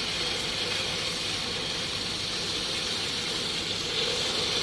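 High-pressure water jet hissing steadily over the hum of its running pump, spraying soapy water through a diesel particulate filter to flush out soot.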